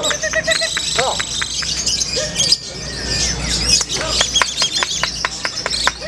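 Female lovebird's ngekek, the long unbroken chattering song: a rapid run of shrill chirps and trills that settles into a fast even series of sharp chirps, about five a second, in the second half.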